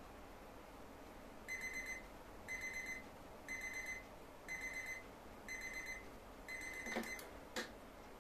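Electronic alarm beeping in quick groups of four, one group about every second, six times. The last group is cut short by a sharp click, and a second click follows just after.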